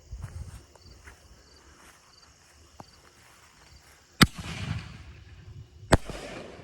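Two consumer aerial firework shells bursting overhead with sharp loud reports about a second and a half apart, each followed by a short trailing hiss and rumble.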